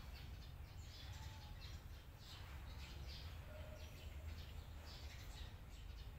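Faint high chirps, about two a second, of small birds calling, over a low steady hum.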